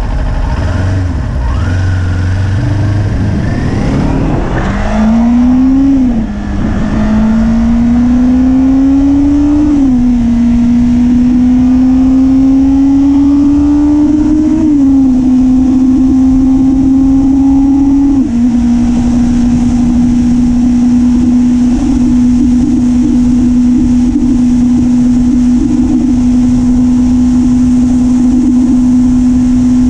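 Kawasaki Ninja 400's parallel-twin engine pulling away from low revs about four seconds in. It accelerates up through the gears, its pitch climbing and dropping sharply at four upshifts. For the last ten seconds or so it runs at a steady pitch at cruising speed.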